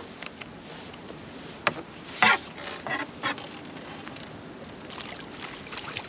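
A hooked chub splashing at the water's surface as it is drawn in to the landing net: several short splashes, the loudest a little past two seconds in, over a steady background hiss.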